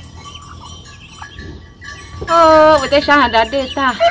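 Faint, short, high bird chirps repeating, then from about halfway through a woman's loud voice, rising and falling quickly in pitch.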